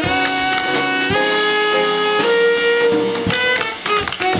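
Tenor saxophone playing a jazz melody in held notes, with sharp clicks of tap shoes on a wooden stage and a quick run of them about three seconds in.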